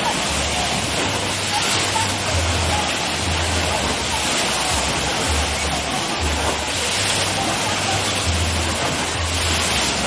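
Wave pool in full swing: a steady rush of churning, breaking water that swells as waves crash, with background music's bass line underneath.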